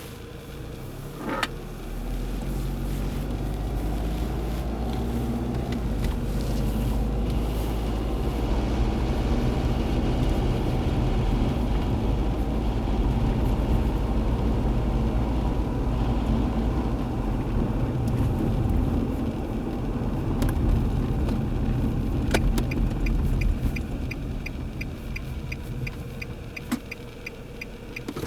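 A 2003 Nissan Altima 2.5S's engine runs with a rumbling noise that grows louder over the first several seconds. The owner traced the noise to low engine oil and cured it with an oil change. A regular fast ticking joins in near the end.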